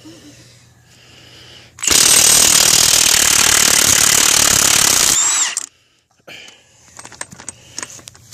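Milwaukee 2767-20 high torque impact wrench hammering in reverse for about three seconds on a long-seized fastener of an old Ford Marmon-Herrington front axle, then its motor winding down with a short falling whine. A few light clicks and rattles follow.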